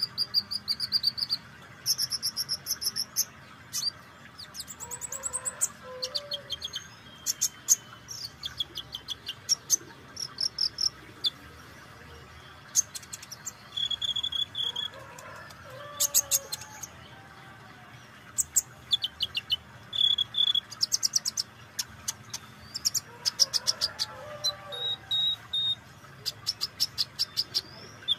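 Van Hasselt's sunbird (kolibri ninja) singing: repeated bursts of rapid, very high-pitched ticking trills and sharp chirps. Fainter, lower calls of other birds come in behind it three times.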